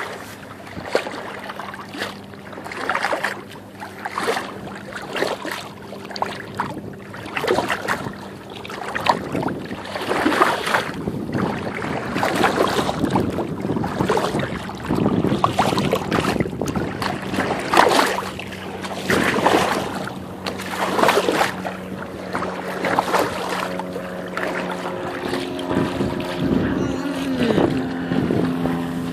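Bow wave of a San Juan 23 sailboat splashing and gurgling against the fibreglass hull as it sails, coming in surges every second or two.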